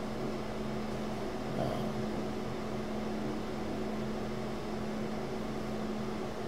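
Steady room hum from running equipment or ventilation: a constant low tone over an even hiss, with no speech.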